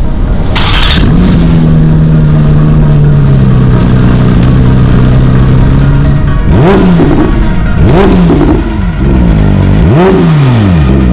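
Porsche 992 GT3's 4.0-litre naturally aspirated flat-six, breathing through a Fi Exhaust valvetronic catback, starts up and settles into a high cold-start idle that slowly drops in pitch. From about six and a half seconds in it gets a few short revs that rise and fall back, the last one dropping to a lower idle.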